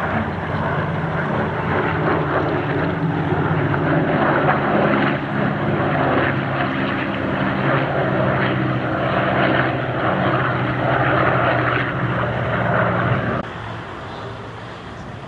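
Lockheed P-38 Lightning's twin Allison V-12 engines droning steadily as it flies a pass, with a rush of propeller and air noise over the engine note. The sound drops off suddenly to a much quieter level about two seconds before the end.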